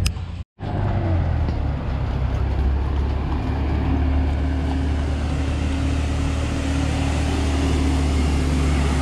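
Car engine and road noise running steadily, a low hum with a steady tone above it, after a brief audio cut-out about half a second in.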